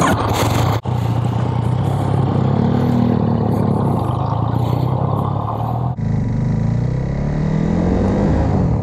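Motorcycle engine running as the bike rides along, its pitch rising in long sweeps as it accelerates. The sound changes abruptly about a second in and again around six seconds in.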